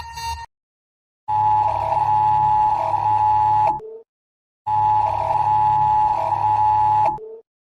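Emergency alert system alarm tone: a loud steady electronic tone near 1 kHz, broken by brief drops to a lower note and ending on a short lower note. It sounds in two blocks of about two and a half seconds, each followed by a short silence, over a low hum.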